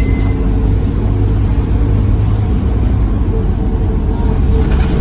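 Scania K230UB city bus in motion, heard from inside the passenger cabin: a steady low engine and road drone.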